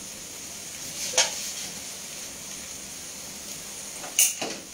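Steady sizzle of food frying on a gas stove, with a short clink about a second in and a sharper knock of a metal pan near the end.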